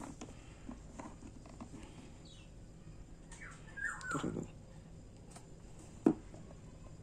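Background animal and bird calls: a short falling call about four seconds in, and faint high chirps. One sharp click comes just after six seconds.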